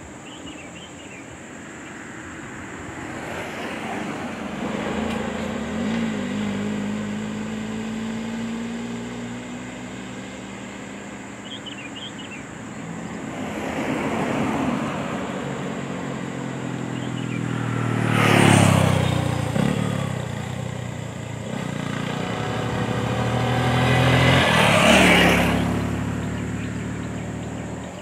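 Cars and a motorcycle driving past one after another, each engine swelling and fading as it goes by. The loudest passes come about two-thirds of the way through and near the end.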